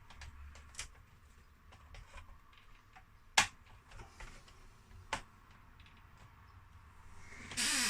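Small plastic clicks and taps from the CD player's tray and loading mechanism being handled and moved by hand, with a sharp click about three and a half seconds in and another about five seconds in. Near the end comes a louder, brief rasping slide whose pitch falls.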